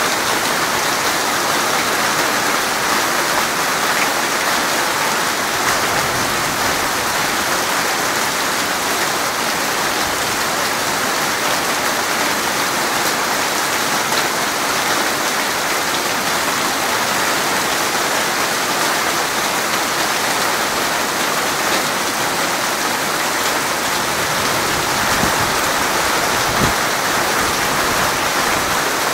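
Steady rain falling on open ground, an even hiss of many drops that keeps up without a break. There is one soft low thump near the end.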